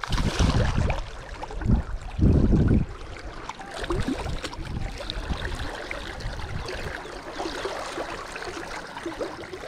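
Water splashing as a hooked brown trout thrashes at the surface, in loud bursts over the first three seconds, then steady river water running and gurgling close by.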